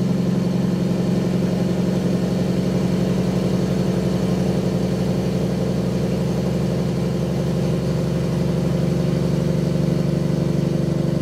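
Peterbilt 379 truck's Caterpillar diesel engine running steadily on the road, its low tone holding an even pitch.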